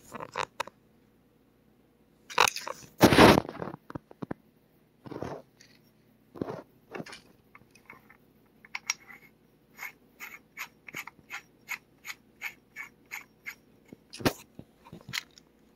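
Steel muzzle brake being screwed by hand onto an AK pistol's threaded muzzle. A burst of crunchy metal scraping and handling knocks comes first. From about halfway in there is an even run of short metal clicks, about three a second, as the brake is turned on the threads.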